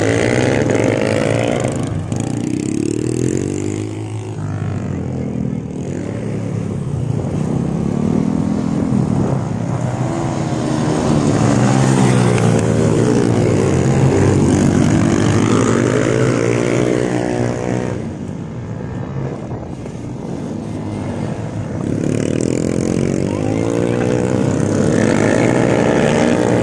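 Small supermoto-style motorcycles riding laps, their engines revving up and dropping back again and again as they accelerate and slow through the corners. The engine sound is loudest around the middle, when a bike passes close by.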